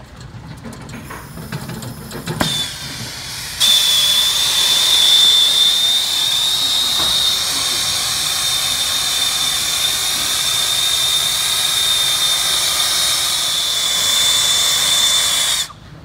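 Acetylene brazing torch burning with a loud, steady hiss and a thin high whistle, starting after a click a few seconds in and cutting off sharply near the end as the torch is shut off.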